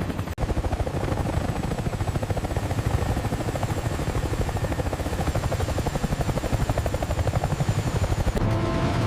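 Helicopter rotor beating rapidly and steadily while it hovers and lifts a slung load, cut out briefly near the start.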